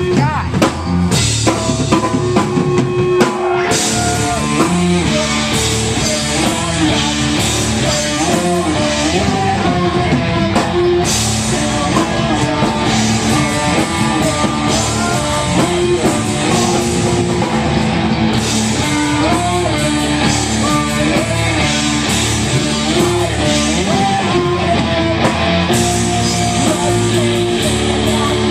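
Live rock band playing: drum kit and electric guitars, steady and loud.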